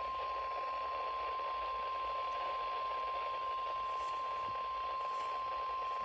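NOAA Weather Radio 1050 Hz warning alarm tone: a single steady high tone over radio hiss, sounded as a test of the station's public warning system.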